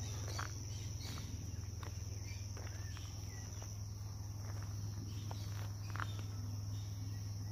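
Insects chirring in a steady, high-pitched drone from the roadside vegetation, with occasional faint clicks of footsteps on a dirt-and-stone road.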